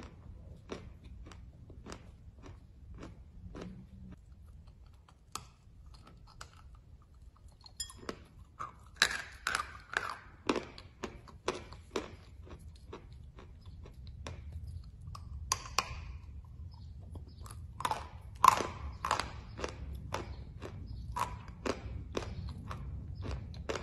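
A person chewing a mouthful of chalk tiles: a run of sharp dry crunches, about two a second at first, with louder bursts of crunching in the middle and again later.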